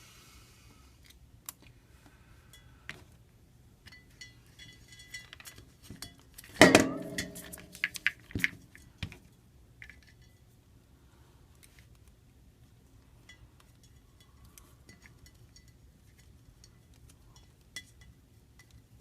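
Small repair tools and iPhone parts tapping and clinking on a work surface as the phone is opened up and its screen propped up, with a louder clatter about seven seconds in.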